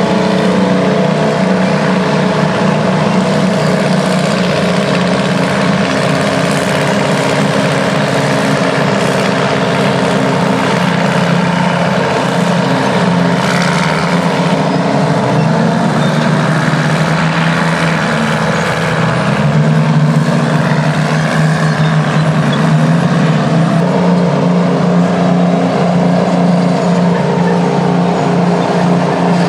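Detroit Diesel engine of a vintage Terex earthmover, running steadily under load while working. Partway through, the engine note sags and wavers, then climbs back up.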